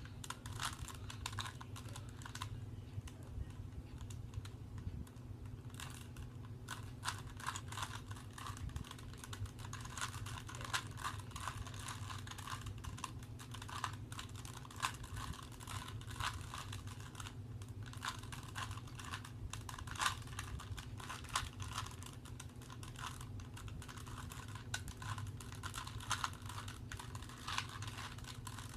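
Rubik's cube being turned by hand: rapid, irregular clicking and clacking of the plastic layers twisting, easing for a few seconds near the start before going on busily.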